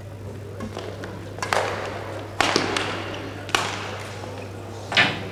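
Badminton rackets striking a shuttlecock in a doubles rally: four sharp hits about a second apart, each echoing in the hall, the last and loudest about five seconds in.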